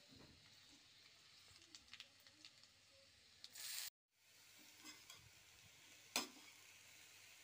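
Faint sizzling of oil and frying radish with its greens in a kadhai, with a few small clicks. The sound drops out briefly about four seconds in, and there is a single sharp knock a little after six seconds.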